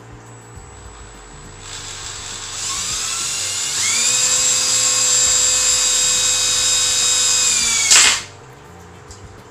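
Cordless drill boring into a clear plexiglass U-tube: the motor whine builds in steps over the first few seconds, then runs steady at full speed. About eight seconds in there is a sharp crack and the drill stops, the sign that the thin acrylic, stressed at its bend, cracked under the bit.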